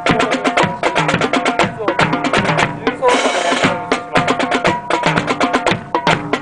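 March music with brass and drums accompanying a military drill: quick, even drum strokes over held brass notes, with a short hissing crash a little after three seconds in.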